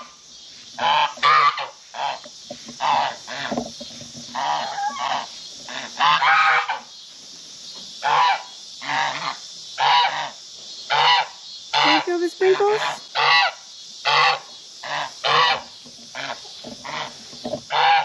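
Domestic geese honking over and over, one harsh call about every second.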